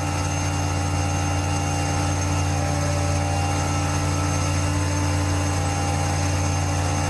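Steady, unbroken drone of an aircraft engine.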